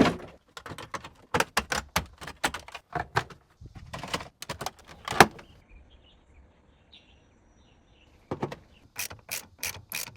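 Irregular sharp clicks and knocks of hard plastic car-interior trim being handled and unclipped. They stop for about three seconds midway, with only a few faint chirps, then start again.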